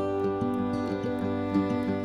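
Background music: gentle new-age-style instrumental with plucked guitar-like notes.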